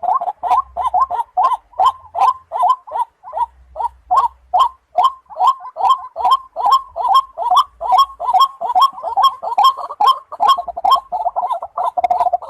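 Waterhen calling: a rapid run of harsh, repeated croaks, about three a second, getting quicker and running together near the end.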